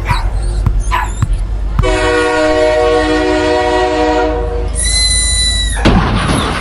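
A few short dog yelps, then a long steady horn blast, a high whistle tone lasting about a second, and a sudden loud noisy burst near the end: cartoon sound effects.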